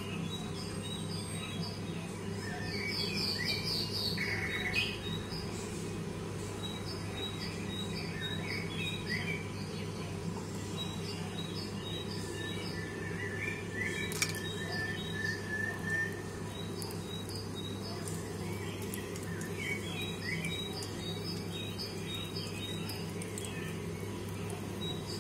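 Small birds chirping in repeated clusters of short high calls over a steady low hum, with one sharp click about fourteen seconds in.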